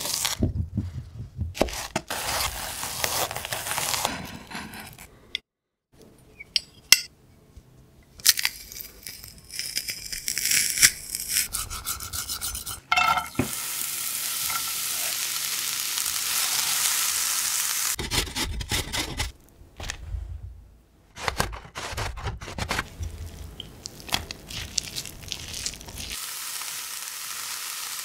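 Chef's knife cutting an onion on a wooden cutting board, in a run of sharp knocks. Then chopped onion sizzling in olive oil in a non-stick frying pan in a steady hiss, and near the end grated carrot and zucchini scraped into the pan with a spatula as it sizzles.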